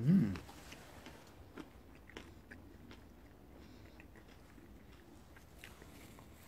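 A short hummed voice sound right at the start, then faint, scattered crunching and chewing as a man bites into a pita döner of pulled pork, salad and onions.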